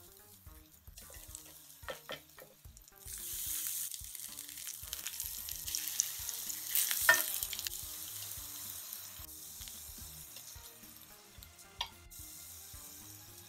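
Apple fritter batter sizzling in hot oil in a non-stick frying pan. The sizzle rises sharply about three seconds in, as batter goes into the pan, then slowly dies down, with a few sharp clicks of the spatula and fork against the pan.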